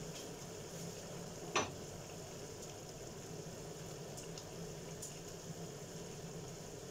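Chicken adobo simmering and sizzling in a nonstick frying pan, stirred with a spatula. A single sharp knock about a second and a half in.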